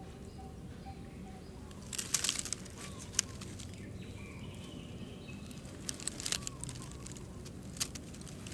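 Outdoor background with a faint note repeating about twice a second for the first second or so. Scattered sharp crackles and snaps follow, and a faint high chirp sounds near the middle.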